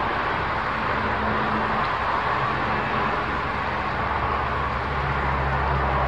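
A steady outdoor hiss, with the low hum of a motor vehicle's engine coming in about halfway through and growing louder near the end.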